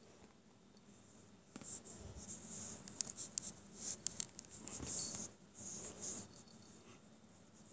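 Scratchy rustling with sharp light clicks, from about one and a half seconds in until about six seconds in.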